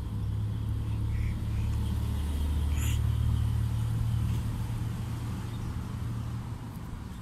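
A low, steady rumble that builds over the first few seconds and fades away near the end, with a single brief tap about three seconds in.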